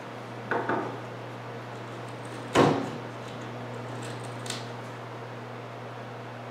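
Knocks from handling a wooden cabinet door and its hinge hardware: two light knocks about half a second in, a sharper, louder knock about two and a half seconds in, and a small click later on, over a steady low hum.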